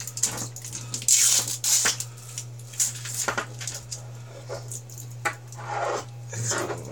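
Side cutters snipping and twisting the spot-welded metal tabs between 18650 lithium-ion cells, with sharp metal clicks and snaps and the cells clinking as they are handled. A steady low hum runs underneath.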